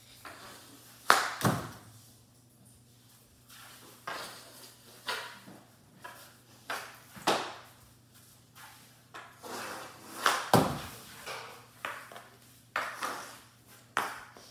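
Mini hockey stick knocking a puck around a hardwood floor: a string of irregular sharp knocks and clacks. The loudest come about a second in and about ten and a half seconds in.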